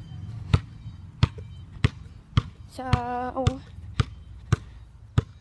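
A basketball bouncing steadily, about nine sharp bounces a little under two per second.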